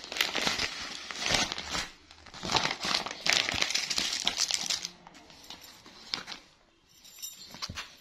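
Clear plastic packaging crinkling and rustling in hands in several loud bursts over the first five seconds, then softer rustling as folded cloth is handled.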